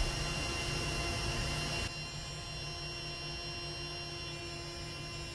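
Small rechargeable electric air pump built into an inflatable chair, running steadily as it blows air into the chair's bottom chamber: an even hum with a high whine over it. It drops slightly in level about two seconds in.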